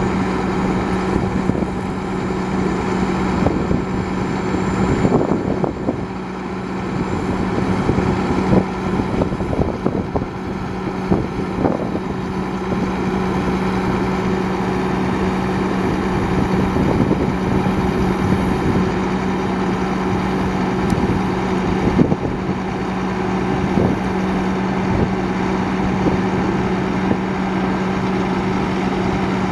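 1997 International 4900 bucket truck running steadily, powering the hydraulics as its aerial boom is lowered: an even hum with scattered light knocks.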